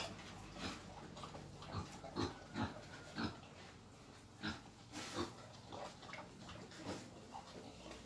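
Wild boar grunting in short, irregular grunts, a dozen or so over several seconds, with one sharper, louder one about five seconds in.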